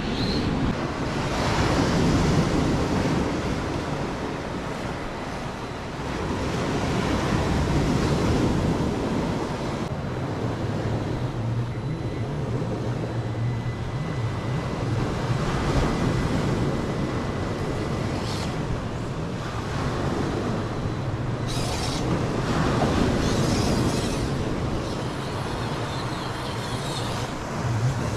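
Waves washing against shoreline rocks, swelling and easing every few seconds, with wind buffeting the microphone.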